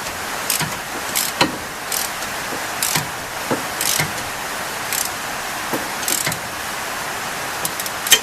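Ratchet and socket on an extension turning a suspension bolt: sharp single clicks at uneven spacing, one or two a second, over a steady hiss.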